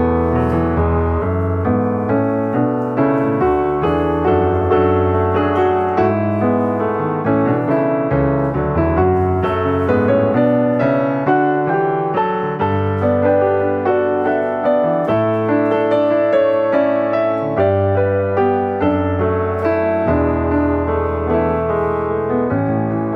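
Background piano music: a steady flow of notes over held bass notes.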